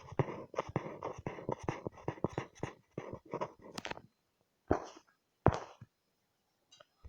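Drawing tool scratching on paper in quick strokes for about four seconds, then two separate single strokes.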